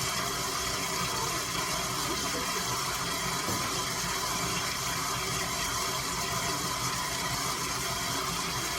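Electric kitchen mixer motor running with a steady hum.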